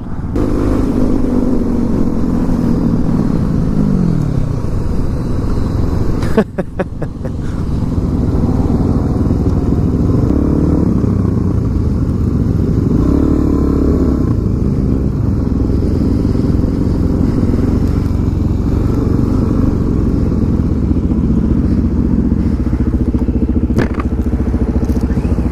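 Suzuki DR-Z400SM supermoto's single-cylinder four-stroke engine running under way, the revs falling and rising several times with a brief drop about six seconds in, as between gears. Steady wind rush on the helmet microphone.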